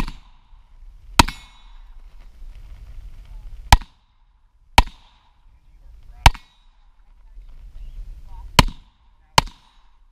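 Semi-automatic pistol firing about seven single shots at an irregular pace, a second or more apart, with the last two close together.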